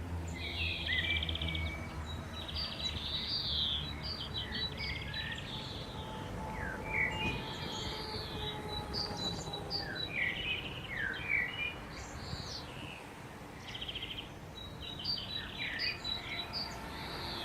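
Songbirds chirping and trilling in short, scattered calls, a steady outdoor ambience, while the last of a low siren tone fades out over the first few seconds.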